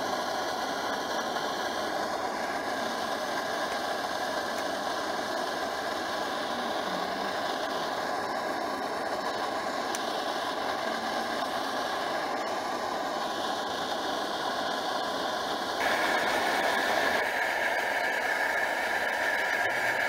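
Pressurised liquid-fuel camp stove burner running steadily; about sixteen seconds in it gets slightly louder.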